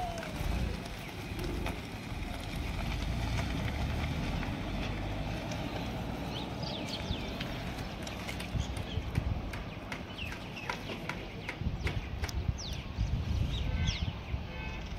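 Birds chirping in short, high, falling calls, many of them from about halfway through, over a steady low rumble from a car driving off down a dirt road.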